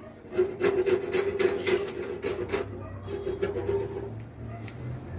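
Short steel bar pieces clinking and scraping against each other and a wooden board as they are sorted by hand, a string of irregular clicks and knocks.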